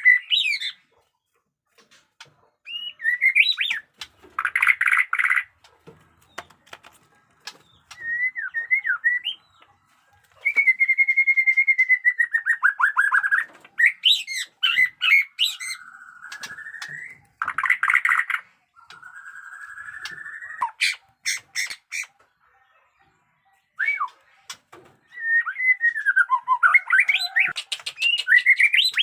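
White-rumped shama (murai batu) singing in separate phrases with short pauses between them: sliding whistles, a long falling whistle that breaks into a trill, buzzy rising notes and short harsh rattles.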